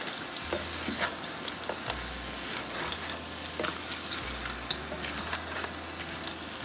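Thick crab and potato curry sizzling in a wok as a wooden spatula stirs it, with scattered clicks and scrapes of the spatula against the pan. The masala is reducing uncovered and is stirred to keep it from sticking to the bottom.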